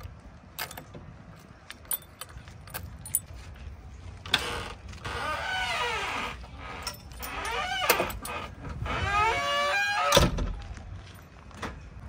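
Heavy diesel machinery running with a low rumble. It revs up and down twice, each time with a whine that rises and falls, amid scattered clicks and knocks. A heavy thud comes near the end.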